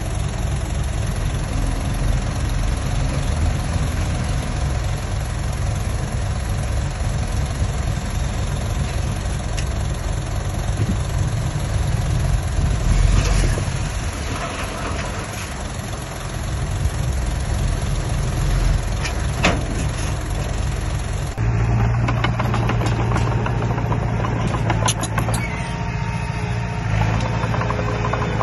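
Diesel engine of heavy construction machinery running steadily, with a couple of short metallic knocks. About 21 seconds in the sound changes abruptly to a steadier low engine hum.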